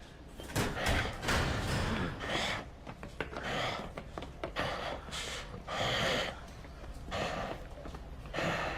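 A man gasping and panting heavily, one hard breath after another, as in an exhausting fight.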